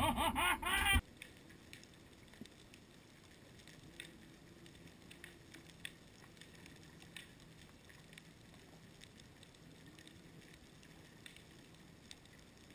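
Loud voices on the boat for about a second, cut off suddenly, then near silence from the underwater camera: only faint, scattered clicks and a weak low hum.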